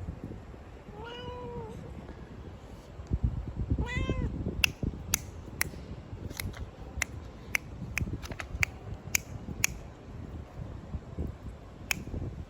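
Domestic cat meowing twice: a rising-then-falling meow, then a louder, higher one a few seconds later. A string of short sharp clicks follows.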